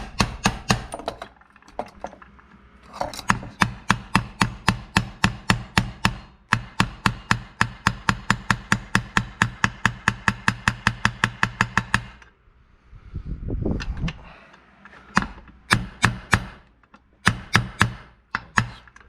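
Hammer tapping metal, driving a part into a two-stroke dirt-bike crankcase half until it seats. The taps come in long, fast, even runs of about five a second with a short ringing tone on each strike, with a brief pause and scattered taps near the end.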